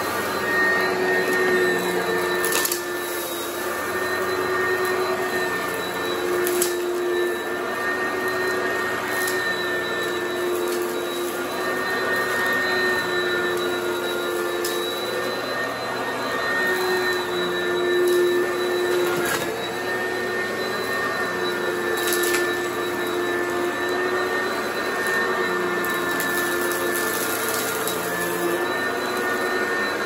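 Oreck XL Commercial upright vacuum running steadily with a held whine, broken by occasional sharp crunchy crackles as grit and debris are sucked up from a heavily soiled carpet.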